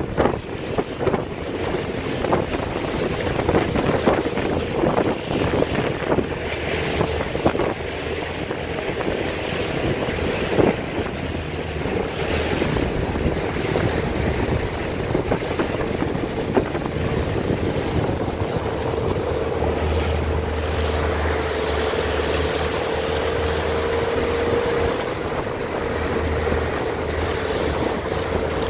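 Wind buffeting the microphone and water rushing and splashing along a moving boat's hull, over a steady droning hum that grows stronger about two-thirds of the way through.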